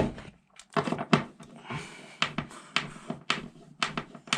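Hands handling small hard objects, making a string of irregular clicks and knocks. The loudest knock comes right at the start.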